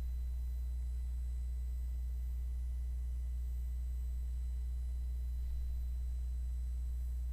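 Steady low electrical hum, unchanging throughout, with faint thin steady tones above it.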